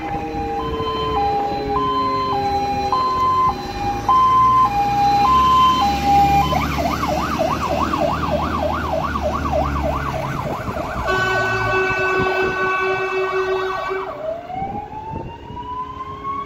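Fire engine siren sounding a two-tone hi-lo pattern, switching about six and a half seconds in to a fast yelp of about four sweeps a second, then a steady horn tone for about three seconds, and a rising wail near the end. The truck's engine rumbles underneath during the first two-thirds.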